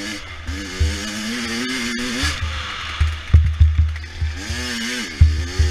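A 100 cc dirt bike engine revving up and down as it is ridden, its pitch rising and falling several times, with repeated heavy low thumps underneath.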